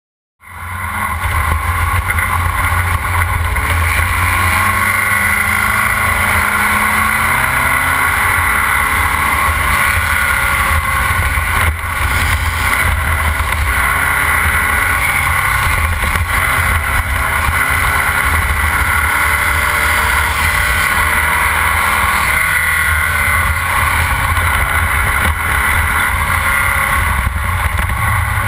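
Air-cooled Volkswagen flat-four engine of a Formula Vee race car at racing speed, heard onboard, its pitch rising and falling as the driver works through the gears. It cuts in abruptly just at the start.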